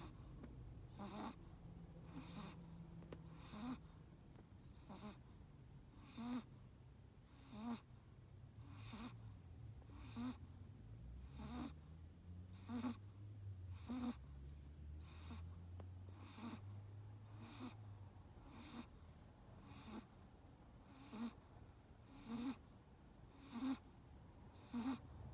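A Chihuahua snoring in its sleep: short, faint snores in a steady rhythm, one about every second and a quarter.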